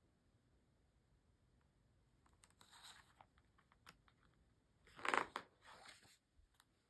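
A page of a hardcover picture book being handled and turned. Soft paper rustling begins about two seconds in, and the loudest swish of the turning page comes about five seconds in.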